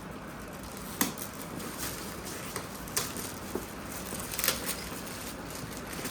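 A few separate clicks and light rustling as a toy box and its plastic packaging are handled.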